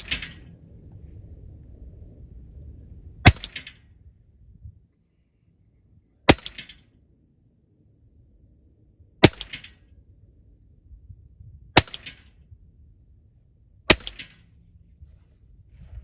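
Five single shots from a Western Airguns Sidewinder .30 calibre pre-charged pneumatic air rifle, each a sharp crack spaced two to three seconds apart.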